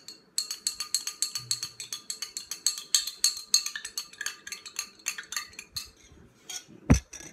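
A spoon stirring a drink in a drinking glass, clinking quickly against the glass several times a second with a ringing note, for about five seconds. A single thump near the end.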